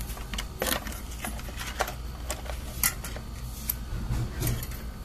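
Irregular light clicks and taps as an aluminium bicycle mini pump's head is pushed and twisted onto a Presta valve, over a low steady hum.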